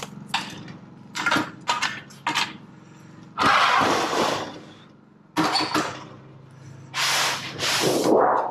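Sheet aluminum trim coil being worked on a sheet-metal brake: a few sharp clanks, then several loud rattling, scraping swishes of the metal about a second long each, over a steady low hum.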